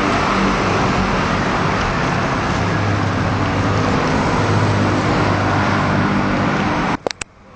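Steady road traffic noise with a low engine hum, which cuts off abruptly near the end, followed by a few sharp clicks.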